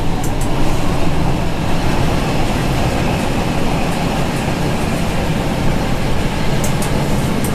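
Metre-gauge diesel railcar running along the line, heard from inside the driver's cab: a steady engine drone with wheel-on-rail noise. A few brief high ticks come just after the start and again near the end.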